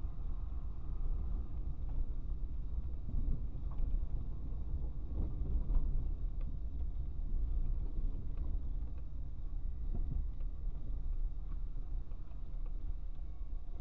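Car driving slowly along an unpaved forest road, heard inside the cabin: a steady low rumble of engine and tyres, with scattered light knocks and clicks.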